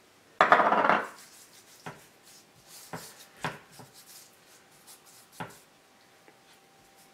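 A brief, louder clatter about half a second in, then hands patting and rubbing seasoning into raw salmon fillets on a wooden cutting board, heard as scattered soft taps and rubbing.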